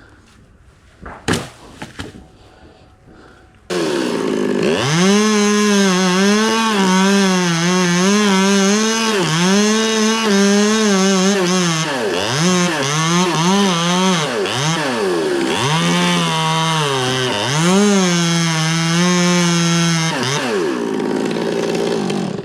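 Two-stroke chainsaw cutting at full throttle. It comes in sharply about four seconds in, after two sharp knocks, and its pitch drops and climbs back several times before it stops about two seconds from the end.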